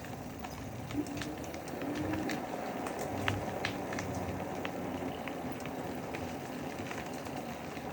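Bicycle tyres rolling over a dirt trail, a steady rough rumble with many small clicks and crackles scattered through it.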